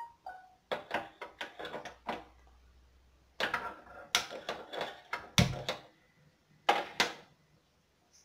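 Irregular clicks and knocks of kitchen things being handled beside the stove, in several clusters, with a heavier thump about five and a half seconds in.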